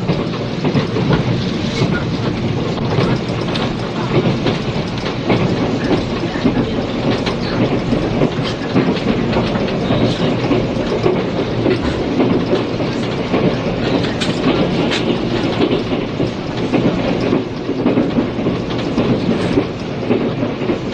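Running noise inside a 485 series electric train car: a steady rumble of wheels on rail with frequent clicks from rail joints, under cassette tape hiss.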